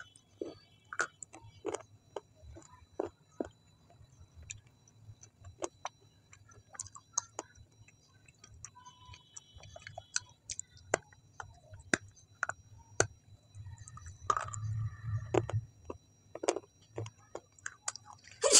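Close-miked mouth sounds of a person chewing with lips closed: irregular soft wet clicks and smacks, a little fuller for a moment about three-quarters of the way through.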